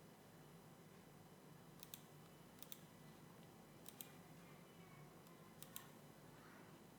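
Faint computer mouse clicks, four quick double clicks spread over a few seconds, above a low room hum.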